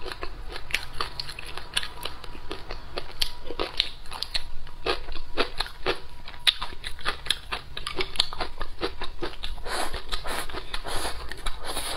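Close-miked chewing and crunching of food, many small crisp bites and crackles in quick succession, as slices of sour-spicy pickled ginger are bitten and chewed.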